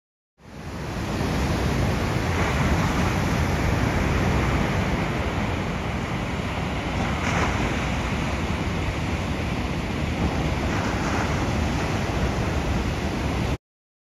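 Ocean surf: a steady rush of breaking waves with a few louder surges, fading in at the start and cutting off abruptly near the end.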